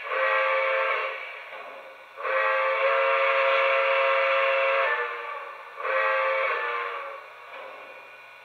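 Recorded steam-whistle sound from the onboard sound system of a Lionel Legacy Nickel Plate Road 2-8-0 Consolidation O-gauge model locomotive. It blows three blasts: short, long, short.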